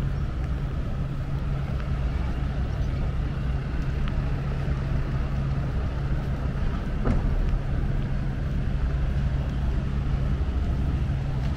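A steady, unchanging low engine hum over outdoor background noise.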